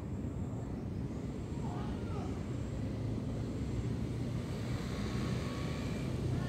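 Low, steady rumble of a distant engine, its hum growing a little stronger in the second half.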